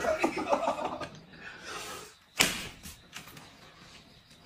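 Men's voices and a little laughter in a small room, then a single sharp smack about two and a half seconds in.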